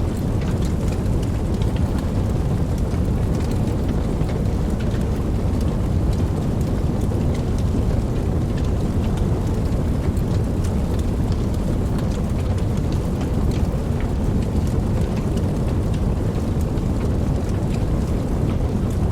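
Steady rain, a dense, even hiss heaviest in the low end, with scattered individual drops ticking sharply over it.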